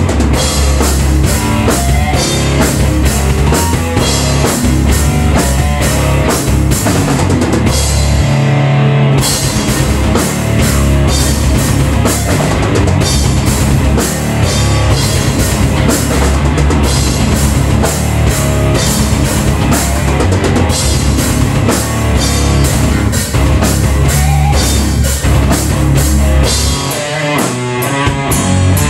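Loud heavy rock played live on a drum kit and an amplified electric guitar, with fast, steady drum and cymbal hits. The drums drop out for a moment about nine seconds in.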